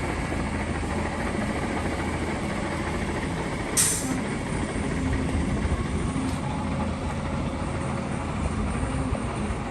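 DAF CF 8x4 concrete mixer truck's diesel engine running steadily, with a brief hiss of air about four seconds in.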